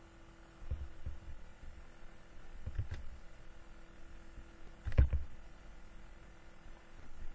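Soft low thumps at the microphone, a few about a second in and again near three seconds, then one sharp knock about five seconds in, over a faint steady hum.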